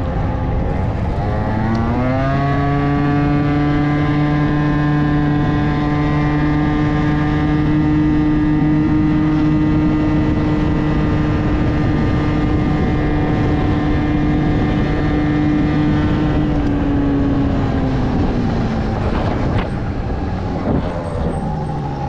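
Aprilia SR 50 scooter's two-stroke engine breathing through a LeoVince TT expansion-chamber exhaust. It revs up about two seconds in, holds a high, steady pitch for about fourteen seconds while riding, then drops back as the throttle is closed near the end.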